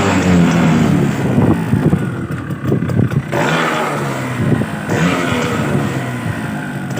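Suzuki Max 100R's 98cc air-cooled single-cylinder two-stroke engine running and being revved through its stock silencer, the pitch rising and falling several times with a rougher, uneven patch in the middle.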